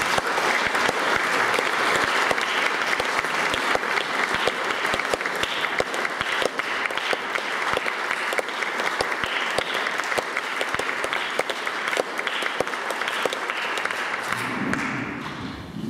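Audience applauding steadily with many hands clapping, the applause dying away near the end.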